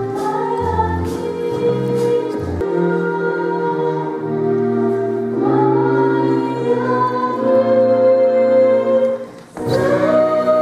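Several voices singing together in a choir-like way, holding long notes that step from pitch to pitch. The music breaks off briefly near the end and comes back on a new held chord.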